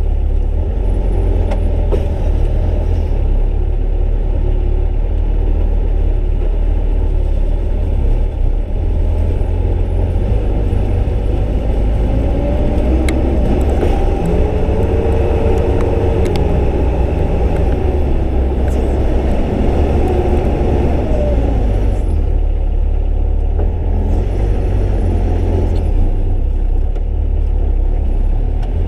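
Sherp amphibious ATV's diesel engine and drivetrain running steadily under way, heard from inside its rear passenger cabin as a loud, continuous low rumble.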